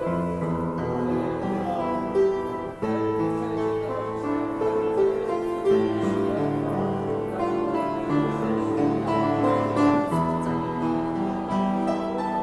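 Music: a melody of piano-like keyboard notes, one note after another.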